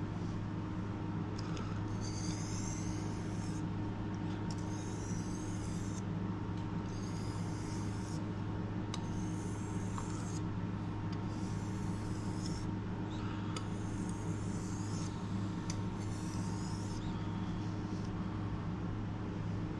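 Kitchen knife blade drawn across a sharpening whetstone in about seven separate strokes, each a second or so long, over a steady low hum.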